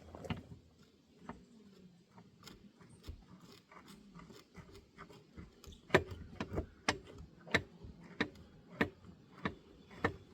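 Faint metallic clicking as the seized railroad turntable's mechanism is worked by hand: a few scattered clicks, then an even ticking at about one and a half clicks a second from about six seconds in.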